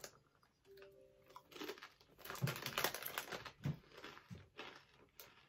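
Potato crisps being crunched and chewed with the mouth closed, a run of crunches starting about two seconds in.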